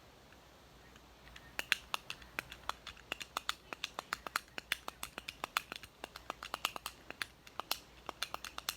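Buttons on a remote-style fidget toy being pressed over and over: a quick run of sharp clicks, several a second, starting about a second and a half in.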